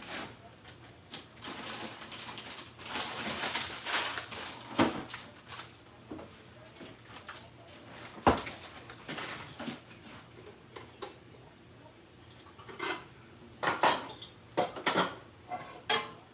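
Pots, pans and metal utensils clattering and clinking as cookware is handled. A scraping stretch in the first few seconds, a sharp knock about eight seconds in, and a quick run of clinks near the end.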